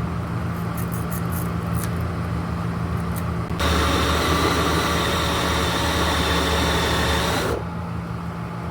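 Power drill running steadily for about four seconds, starting and stopping abruptly, over a steady low hum.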